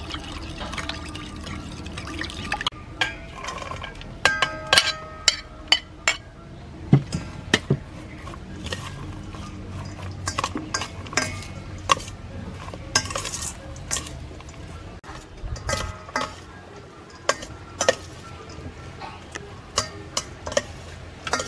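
A metal spoon stirring and clinking in a ceramic bowl of dressing. Repeated sharp clinks and knocks of utensils against bowls follow, some ringing briefly, as a salad is mixed in a stainless steel bowl.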